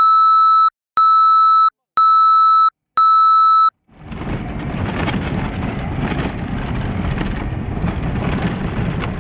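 A series of four identical electronic beeps, about one a second, each held for most of a second with dead silence between them. Then, about four seconds in, the steady rumble and rattle of a car driving over a rough dirt track, heard from inside the cabin.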